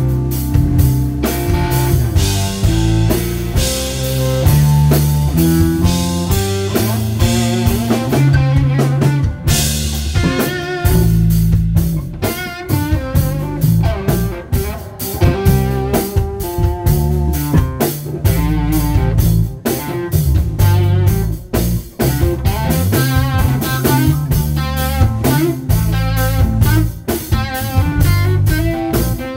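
Live band music without vocals: a Telecaster-style electric guitar leads with melodic lines and wavering, vibrato-bent notes over bass and drum kit.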